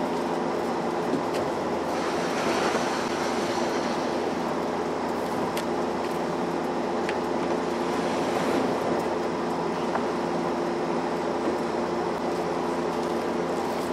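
A steady mechanical hum at an unchanging pitch, under faint rustling and a few light knocks as a moving blanket is handled around a pinball cabinet in a pickup bed.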